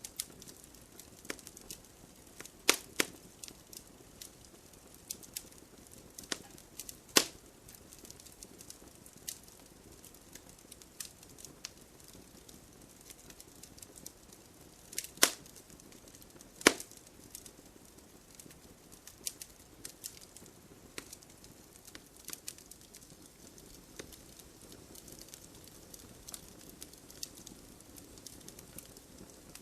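Wood fire crackling: irregular sharp pops and snaps of burning wood over a faint steady hiss, with a few much louder pops.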